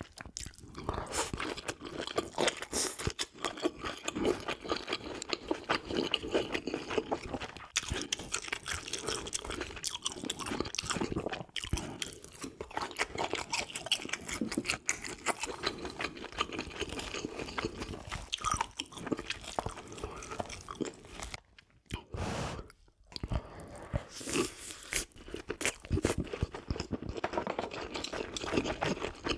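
Close-miked eating sounds: a person chewing and crunching food, with dense wet clicks and crackles, pausing briefly about three quarters of the way through.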